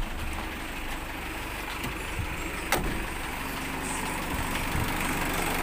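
Mitsubishi 4D56 four-cylinder diesel engine idling steadily, just started after a water pump replacement and coolant refill to warm up and bleed air from the cooling system. A single sharp click sounds near the middle.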